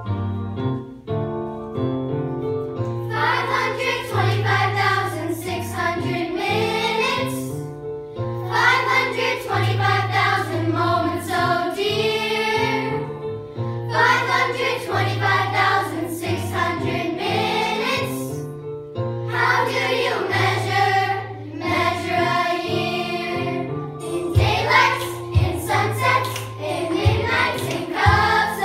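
A chorus of children singing a show tune together over a keyboard accompaniment with a steady repeating bass line. The keyboard plays alone for the first few seconds before the voices come in, and the singing then goes on in phrases with short breaths between them.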